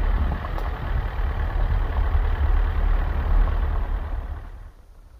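Car driving slowly along a rough dirt track: a low engine and tyre rumble that drops away sharply about four and a half seconds in.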